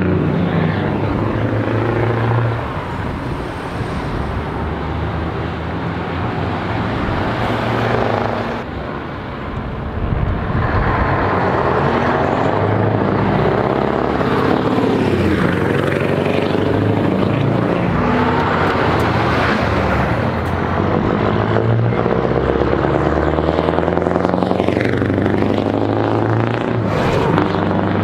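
Scania trucks with loud exhausts driving past one after another, their diesel engines running under load and revving. The pitch rises and falls as each truck goes by.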